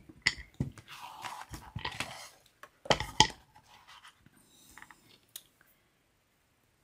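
Small clicks, taps and scratching as fake strawberry slices are handled and set onto a spackle-frosted cake edge, with the loudest knocks about three seconds in.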